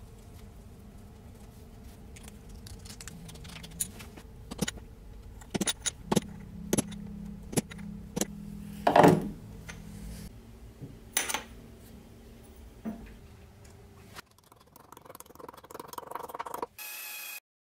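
Metal parts and tools clinking and knocking in a workshop, a dozen or so separate sharp strikes with the loudest about halfway through, over a faint steady hum.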